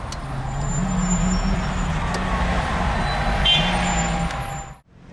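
Road vehicle engine running with road noise, swelling through the middle, with a brief high-pitched tone about three and a half seconds in; the sound cuts off abruptly near the end.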